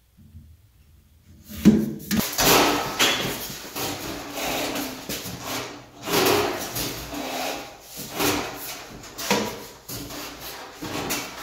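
Scraping and rubbing of a steel pellet stove being pushed back across a tile floor, its vent pipe sliding into the wall thimble. It starts with a sharp knock about a second and a half in, then goes on as scraping that swells and fades.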